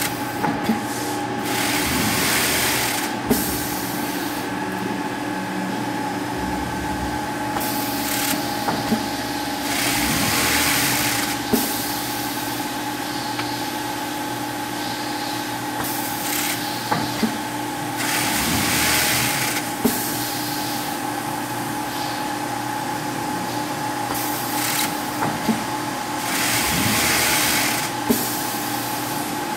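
Bubble-wrap bag-converting machine running with a steady hum. About every eight seconds comes a hiss lasting a second or two that ends in a sharp click, as the machine cycles through each bag.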